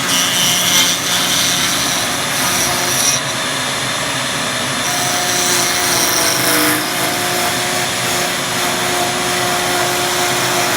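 A power tool running steadily, a loud continuous whirring noise with a steady hum under it.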